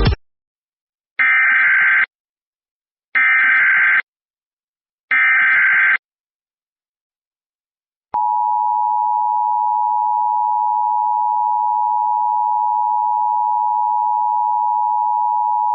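Emergency Alert System required weekly test: three short bursts of SAME digital header data, each about a second long and spaced about two seconds apart. About eight seconds in comes the steady two-tone EAS attention signal, which holds to the end.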